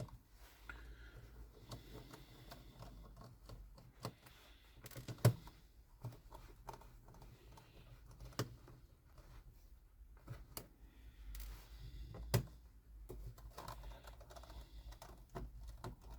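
Small screwdriver taking out screws from a laptop's plastic chassis: faint scraping and handling with scattered sharp clicks and taps.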